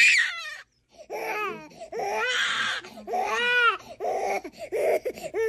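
A baby crying hard at a vaccination: a run of loud, high wails, with a short silent catch of breath just under a second in before the crying starts again.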